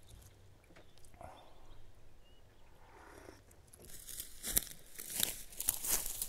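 Footsteps crunching and crackling through dry, dead grass, starting about two-thirds of the way in and growing louder as a hiking boot steps in close.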